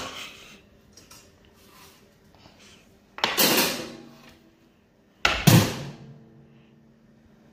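KitchenAid countertop toaster oven clanking: two metallic clunks about two seconds apart, each with a short ring. The second and louder clunk is the oven door being shut.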